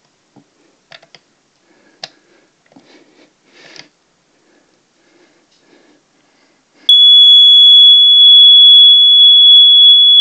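Plug-in smoke alarm sounding under test: after a few faint clicks from handling and the pressed test button, a loud, steady high-pitched alarm tone comes on about seven seconds in.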